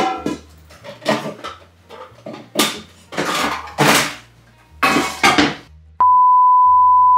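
A rapid series of loud clattering crashes, like kitchenware being dropped and banged, with faint music underneath. About six seconds in, a loud, steady, high test-card beep tone starts suddenly and holds.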